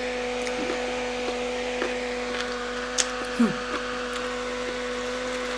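Small handheld battery fan running close to the microphone: a steady motor hum with an airy whir, broken by a few faint clicks.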